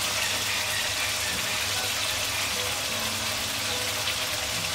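Prawns and spice paste sizzling in hot mustard oil in a steel kadai: a steady frying hiss, with a steady low hum underneath.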